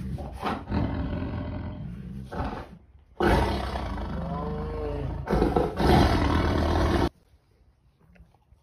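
Tiger growling loudly while eating meat, in three long rough bouts, the middle one rising and falling in pitch. It cuts off suddenly about seven seconds in.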